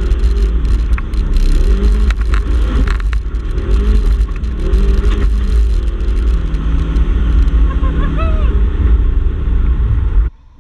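Polaris RZR XP 1000 side-by-side's engine revving up and down as it drives a dirt trail, over a heavy low rumble, with a few sharp knocks in the first few seconds. The sound cuts off abruptly near the end.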